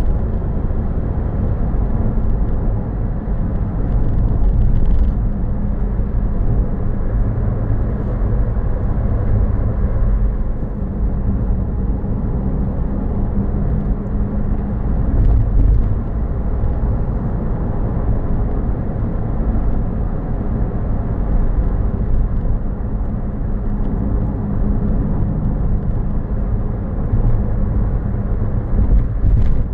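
A car driving steadily along a road, recorded by a dashcam: a continuous low rumble of engine and tyre noise with a faint engine hum, and a few faint knocks.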